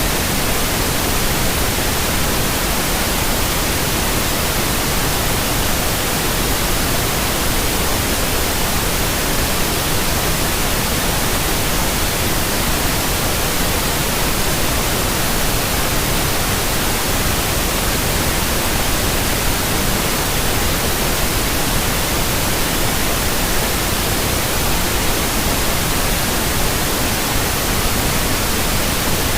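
Steady synthetic white noise, an even hiss spread across all pitches, played as a baby sleep aid.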